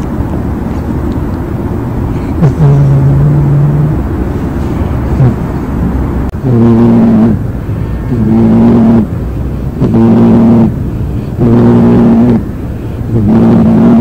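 A cat snoring in deep sleep: from about halfway through, a loud, buzzy, pitched snore on each breath, about every second and a half, five in all. Before that there is a softer, steady low rumble.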